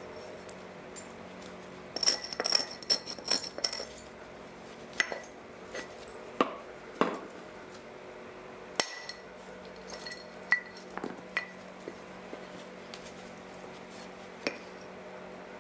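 Flint being knapped: sharp, glassy clicks and clinks of flint being struck and flakes coming off. A quick cluster comes about two seconds in, then single clicks every second or two, over a faint steady hum.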